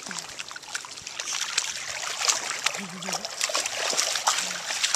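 Dogs wading through shallow water, their legs making small, irregular splashes and sloshing.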